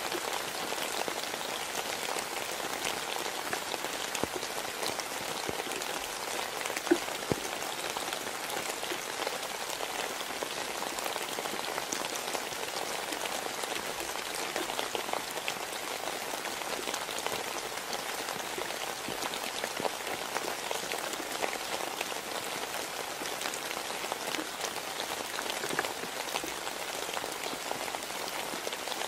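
Steady rain falling, with many single drops ticking all through and two louder taps about seven seconds in.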